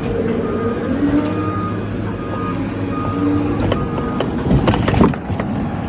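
Heavy machinery engine running with a backup alarm beeping repeatedly. Several sharp metal clanks come near the end.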